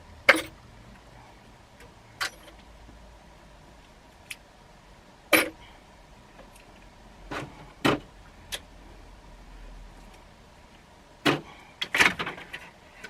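Metal hand tools clinking and clanking as they are handled and set down, in single sharp knocks a second or two apart, with a quick cluster of clatter near the end.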